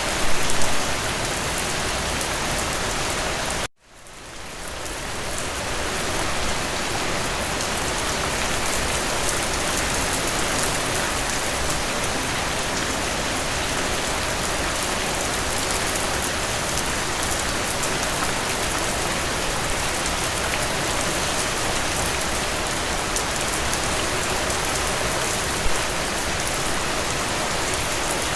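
Steady rain falling, an even hiss of drops on surfaces. About four seconds in, it cuts out suddenly and fades back up over a couple of seconds, like a loop or edit point in the recording.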